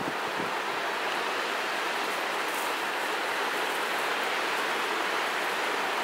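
Wind blowing steadily through conifer trees, an even hiss that holds at one level.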